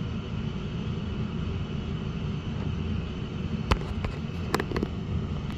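Coleman Mach RV rooftop air conditioner with its fan running steadily while its compressor waits on the time-delay relay to start. A few sharp clicks come about two-thirds of the way in.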